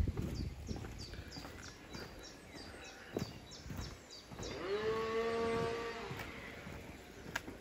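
A bird calls in a quick run of short, high, falling chirps for the first few seconds. Then, about four and a half seconds in, a distant animal gives one long, even-pitched call lasting about a second and a half.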